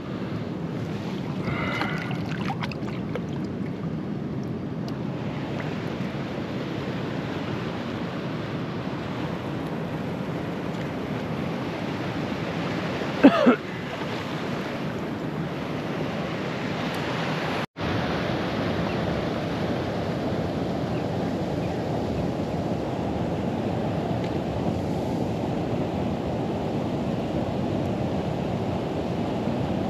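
Steady rushing noise of flowing water and wind on the microphone, with a short, loud high squeak about 13 seconds in and a momentary drop-out of all sound about 18 seconds in.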